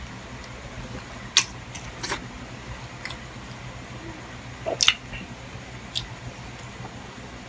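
Close-up eating sounds: chewing, with a handful of short sharp clicks and smacks scattered through, the loudest about a second and a half in and again near five seconds in, over a steady low hum.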